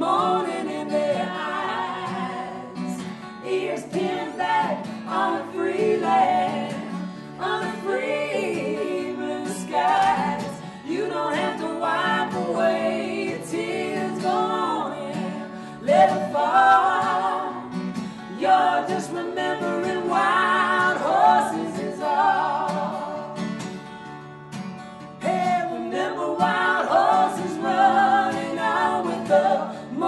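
A woman and two men singing in harmony over a strummed acoustic guitar.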